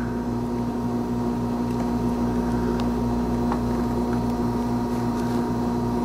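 Steady electrical machine hum in the room, an even drone with a strong low tone and a faint pulsing underneath, with a couple of faint small clicks from hands working wires on the engine.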